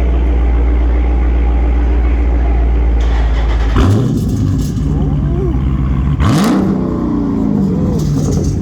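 Dodge Charger's 6.4-litre HEMI V8, with a mid-muffler-delete exhaust, idling steadily, then revved twice, about four and about six seconds in, each rev rising quickly and dropping back to idle.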